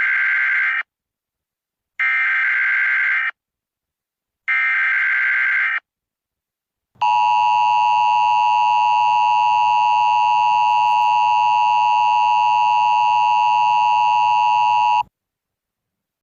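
Emergency Alert System tones: three short bursts of the SAME header's data warble, each about a second long and about two seconds apart, the first already under way. After a short gap comes the EAS two-tone attention signal, held steady for about eight seconds before cutting off sharply.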